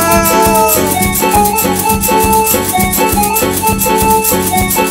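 Instrumental passage of a Cañari folk dance tune played live between sung verses, with a steady, quick beat and a held melody line over it.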